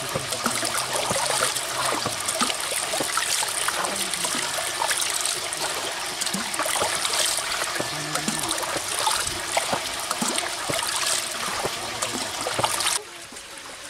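Water pouring steadily out of a split banana-stem spout into a woven bamboo basket fish trap, splashing down onto the caught fish. The flow sound stops abruptly near the end.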